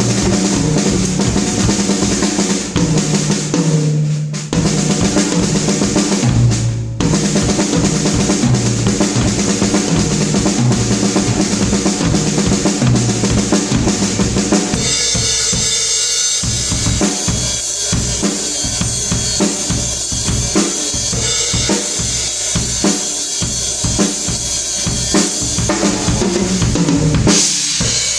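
Drum kit being played in a steady groove, kick and snare over a sustained low bass line that steps between notes. About halfway through the playing turns busier and brighter, with cymbals washing over dense hits.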